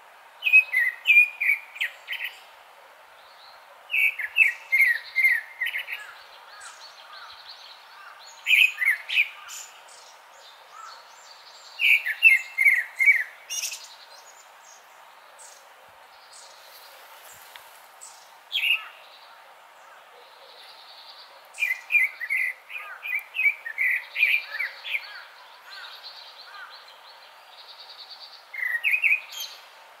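Grey-backed thrush singing: short phrases of quick, sliding notes repeated about every three to five seconds, with pauses between them.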